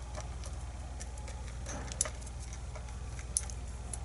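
Scattered small metal clicks and ticks from handling the parts of a lock cylinder being taken apart, with a couple of sharper ticks, over a low steady hum.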